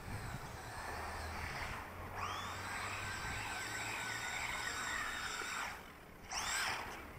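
Wltoys A959 4WD RC buggy's electric motor and drivetrain whining as it runs at speed along the asphalt. The whine sets in about two seconds in and holds steady, then dips and comes back near the end with pitch rising and falling several times.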